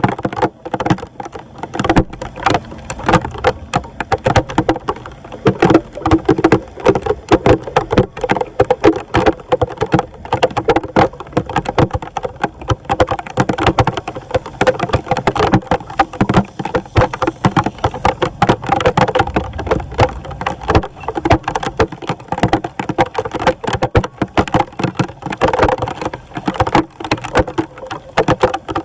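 Water splashing and sloshing continuously in quick, irregular splashes.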